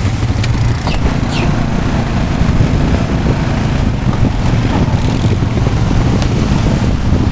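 ATV engine running at steady revs, a low, even rumble.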